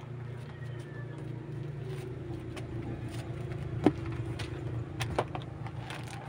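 Clothes being rummaged through and pulled from a gift box, rustling with scattered small clicks and a sharp click about four seconds in, over a steady low hum.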